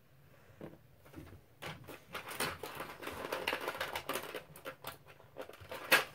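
Hands rummaging among small plastic doll-kitchen accessories: a run of light clicks and rustling, with a sharper click near the end.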